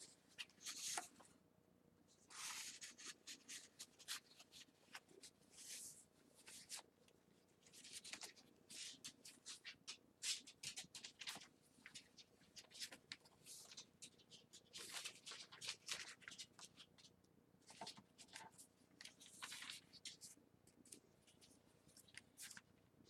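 Faint rustling of paper as the pages and paper inserts of a handmade journal are handled and turned, coming in short, irregular bursts.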